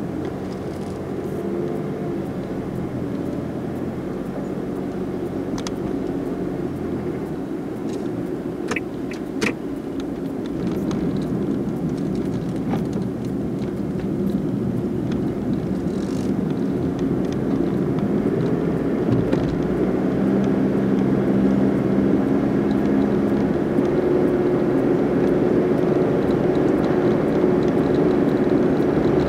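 Car engine and road noise heard from inside the cabin while driving, growing steadily louder as the car gathers speed on the ramp. There are a couple of sharp clicks about nine seconds in.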